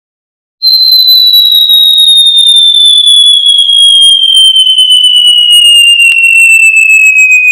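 A single loud, high whistling tone that starts about half a second in and glides slowly and steadily down in pitch: a falling-whistle sound effect.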